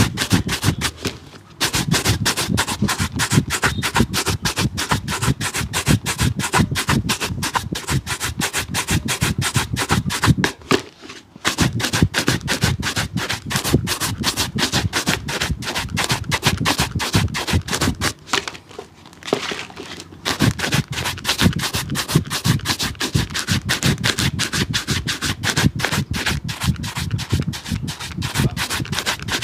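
A brush scrubbing a shoe in fast, even back-and-forth strokes, broken by three short pauses.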